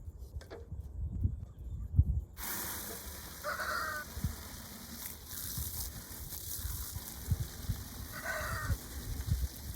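A crow cawing twice, several seconds apart, over a steady rushing hiss that starts abruptly about two seconds in. Low thumps sound on the microphone throughout.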